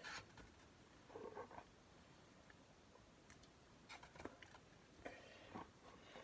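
Eggs being handled in an egg carton: a few faint, scattered taps and clicks of shell against carton and shell.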